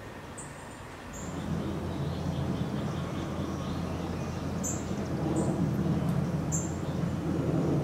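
Outdoor ambience: a low steady hum sets in about a second in and runs on under short, high bird chirps that come every second or two.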